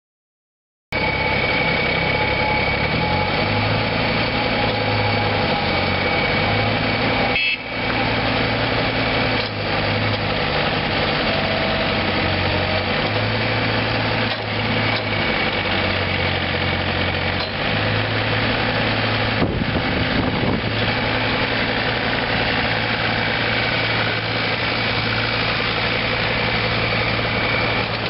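Takeuchi TB235 mini excavator's Yanmar three-cylinder diesel running as the machine is worked, starting about a second in; its low engine note shifts up and down in steps as the hydraulics load it, with a steady high whine over it.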